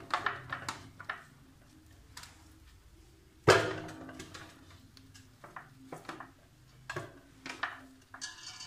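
Raw bone-in mutton pieces set down into an aluminium cooking pot and moved off a steel tray: irregular knocks and clanks of meat and bone against metal, some ringing briefly, the loudest about three and a half seconds in.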